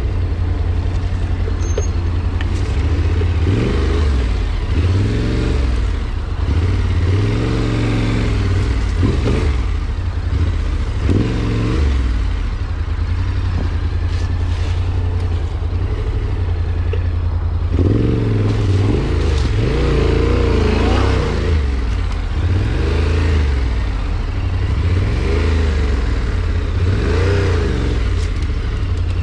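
A vehicle engine running under load, its revs rising and falling repeatedly, with clatter and rumble on top.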